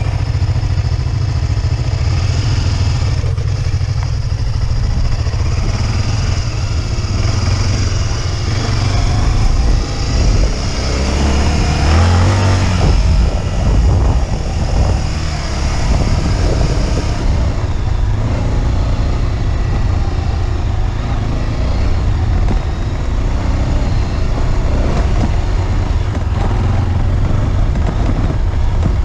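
Motorcycle engine running steadily while riding, a dense low rumble with a rushing haze over it, swelling louder for a few seconds about ten seconds in.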